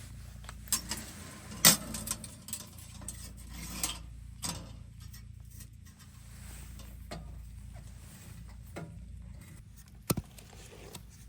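Charcoal and a small metal stove being handled: scattered clinks and knocks, the sharpest about one and a half seconds in, then a quieter stretch and a couple more knocks near the end.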